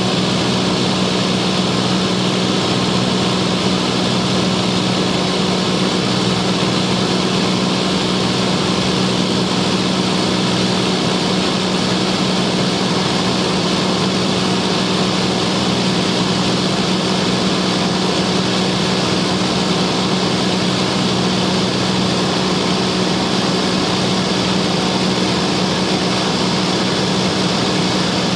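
Light aircraft's engine and propeller droning steadily, heard from inside the cabin in cruise: a constant low hum under a wide rush of air noise, with no change in pitch.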